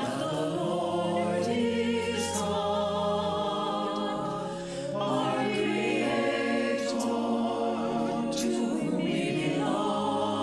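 A choir singing a sacred anthem in several parts, holding chords with vibrato; one phrase ends and a new one begins about halfway through.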